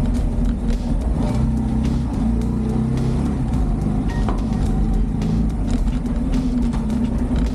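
Motorcycle engine running steadily while riding, a continuous low drone.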